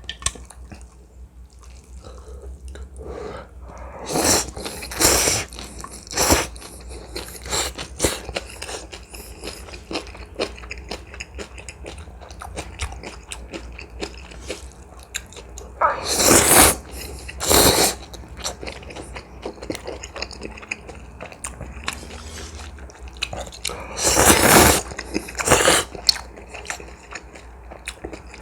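Close-miked eating of instant ramen with dumplings: steady chewing and lip smacking, broken by several loud slurps of noodles about a second long, around four, sixteen and twenty-four seconds in.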